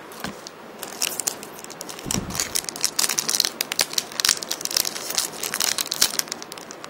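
A trading card packet's wrapper being torn open and crinkled in the hands: a dense run of sharp crackles from about a second in until near the end, with a soft thump about two seconds in.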